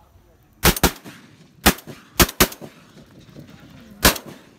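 Shotgun blasts: about six shots, a quick pair within the first second, a single and another quick pair over the next two seconds, and a last shot near the end.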